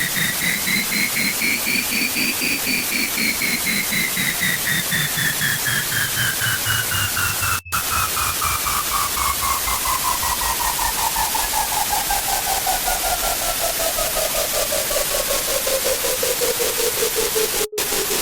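Loud harsh-noise static filling the whole range, with a synthetic tone that rises for about two seconds and then glides slowly downward for the rest. The sound cuts out for an instant twice, about eight seconds in and near the end.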